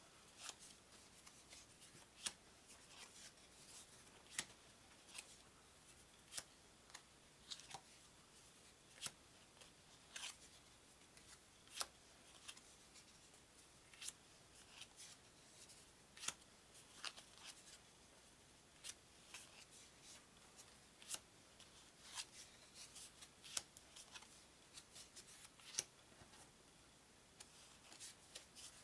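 Faint, irregular clicks and flicks of cardstock game cards being lifted off a small deck and laid down one at a time, roughly one a second.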